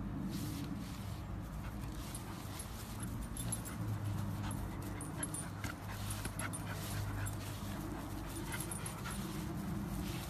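A puppy growling in long low stretches as it tugs on a leash, pausing briefly twice.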